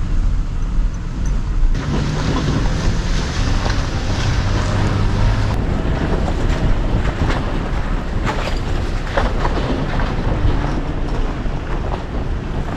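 Toyota Tacoma pickup driving slowly over a rough, potholed gravel road, a steady low rumble of engine and tyres. From about two seconds in, wind buffets the microphone, and scattered knocks come as the truck jolts over ruts.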